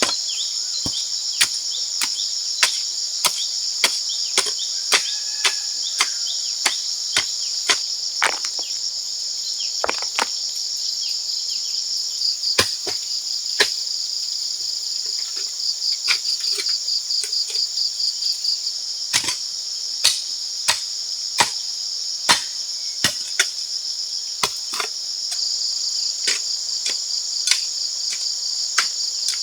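A steady high chorus of jungle insects, with sharp tool strikes knocking at a steady pace of about one to two a second, becoming sparser and more irregular in the second half.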